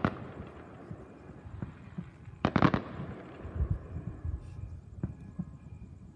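Fireworks going off: a bang at the start, a cluster of sharp bangs about two and a half seconds in, then softer low thuds and a single crack near the end.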